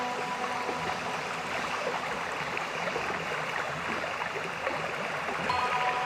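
Steady rush of falling water, an even hiss without rhythm. Soft sustained music notes come back in near the end.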